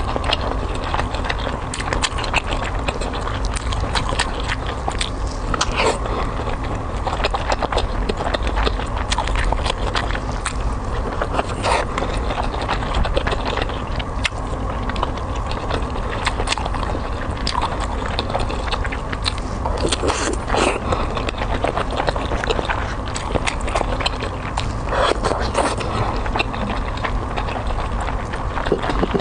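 Close-miked eating of seafood in a cold marinade sauce: a continuous run of wet bites, chewing and small crunches.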